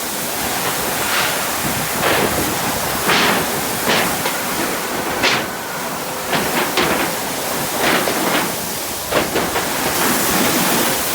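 Steady hiss of water spraying from a fire hose under pump pressure, broken by about a dozen short, sharp noises at irregular intervals.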